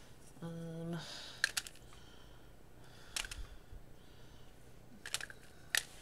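Wax crayons clicking against one another and being set down on wax paper as they are handled, a handful of separate light clicks spread over several seconds.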